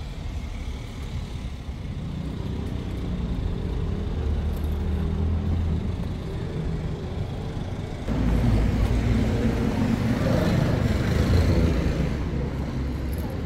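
City street traffic: a motor vehicle's engine running close by, getting louder about eight seconds in.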